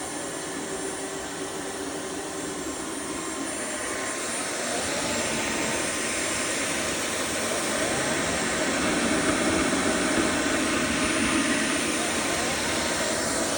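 Roborock F25 Ultra cordless wet-dry floor washer running, a steady motor whine and rush of air that grows louder about five seconds in and stays loud.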